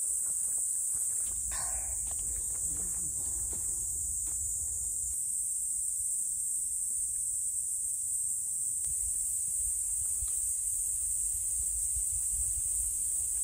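A steady, unbroken high-pitched insect chorus, with a low rumble underneath and a brief crackle about two seconds in.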